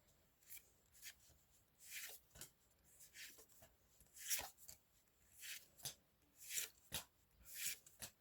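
Faint swishes of Pokémon trading cards being slid one at a time off the stack of a freshly opened booster pack, about one or two a second.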